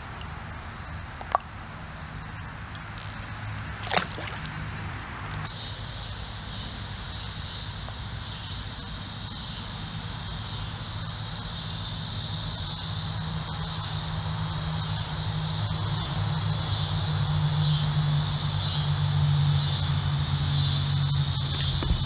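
Chorus of insects in the creekside trees: a steady high-pitched trill, joined from about five seconds in by a louder pulsing chorus a little lower in pitch that swells toward the end. Two sharp clicks come about one and four seconds in.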